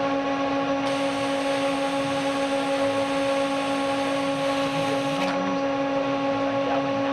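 Steady electrical hum of several fixed tones from the Motoman SV3 robot arm's machinery while it moves. A hiss starts sharply about a second in and stops about four seconds later.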